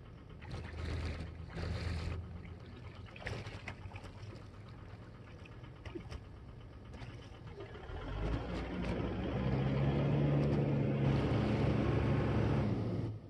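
A vehicle engine running, swelling louder about eight seconds in to a steady hum, then cutting off suddenly near the end. A few brief rushes of noise come in the first two seconds.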